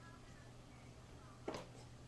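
Near silence: faint room tone with a low steady hum and a single short click about one and a half seconds in.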